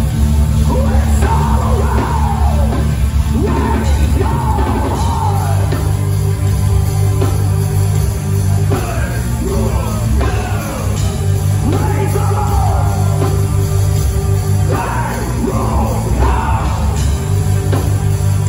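Live metal band playing loud, with heavy bass and drums and a singer's shouted vocal lines that come in three groups of phrases.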